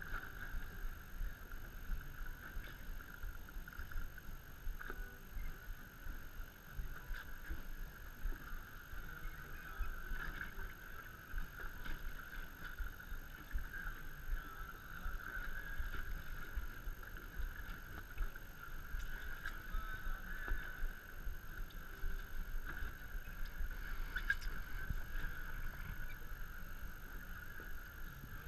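Small fishing boat drifting on open water: a low, uneven rumble of water and wind against the hull, with a steady high-pitched hum underneath and a few faint ticks.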